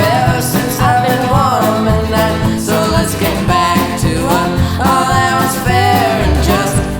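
Background music: a song with a singing voice over guitar, bass and drums, in a country style.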